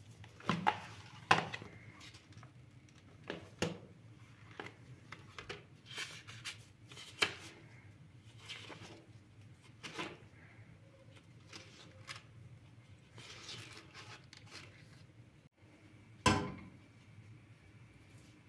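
Objects being handled and set down: a string of separate knocks and clicks, the loudest ones about a second in and one sharp knock near the end.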